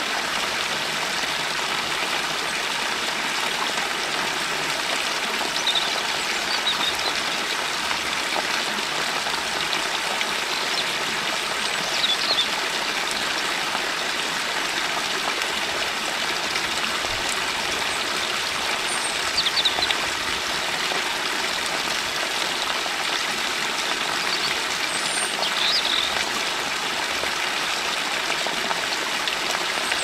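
A stream flowing and trickling steadily, with short high bird chirps every few seconds.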